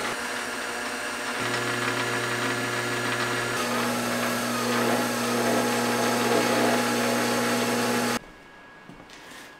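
Benchtop lathe running as it turns a metal workpiece: a steady motor hum with a hiss over it, the hum changing pitch about a second and a half in and again near four seconds. It cuts off abruptly about eight seconds in, leaving faint room tone.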